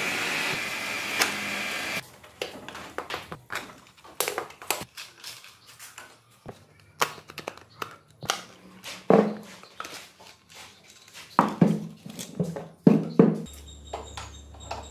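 A steady hiss that cuts off about two seconds in, then irregular knocks and clinks of metal parts and hand tools being handled on a workbench. A low steady hum comes in near the end.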